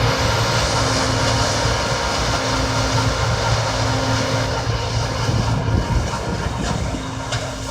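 John Deere C670 combine harvester running steadily in the rice field: its engine hum is under a dense rushing of threshing machinery, with a few faint ticks in the second half.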